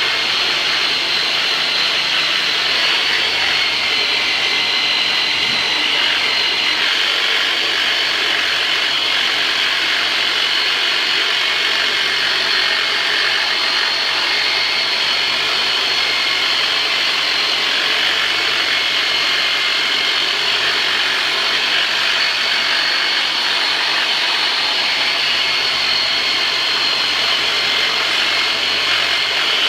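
Handheld electric vibration massager running steadily at high speed, its motor whining evenly as it works over strained lower-back muscles.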